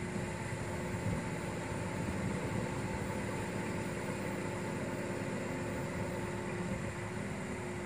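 Kato truck crane's diesel engine running steadily at idle, with a constant hum.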